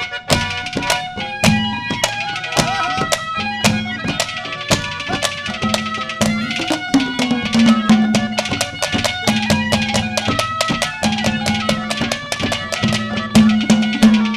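Instrumental interlude of Haryanvi folk ragni accompaniment: a fast, steady hand-drum rhythm over a melody instrument holding and moving between notes.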